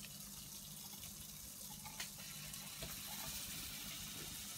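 Water running and splashing steadily into a basin, with a faint low hum underneath and a couple of light ticks. It grows a little louder about three seconds in.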